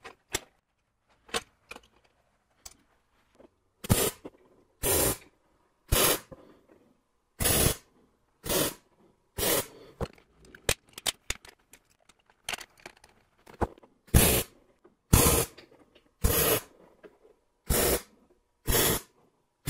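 MIG welder laying a series of quick tack welds on steel channel: about a dozen short crackling bursts of the arc, each under half a second, with faint clicks of handling between them.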